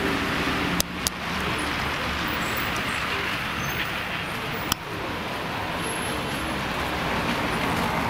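Steady street traffic noise with a low rumble, broken by a few sharp clicks about a second in and again near five seconds.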